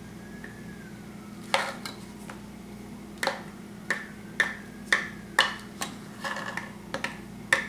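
Hammer striking a nail into a small wooden bird house: about a dozen sharp, uneven blows, coming roughly twice a second after a slower start.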